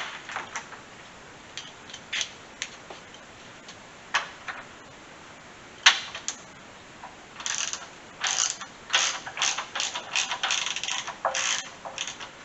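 Hand ratchet wrench clicking, a few separate clicks at first and then quick runs of strokes in the second half, as a bolt is worked loose.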